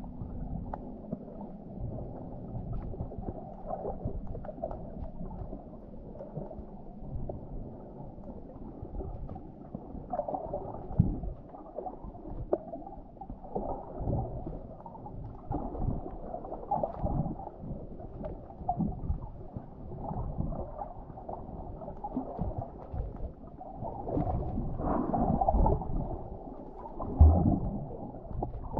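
Muffled underwater noise of moving water, gurgling, with scattered clicks and knocks; it swells louder near the end.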